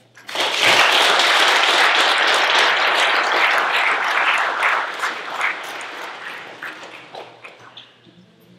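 Audience applauding, starting almost at once, loudest over the first few seconds and then dying away gradually.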